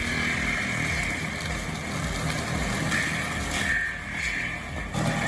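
Engine-driven wood-processing machine running steadily under load, a low engine rumble under a high, sustained whine; the sound shifts abruptly about five seconds in.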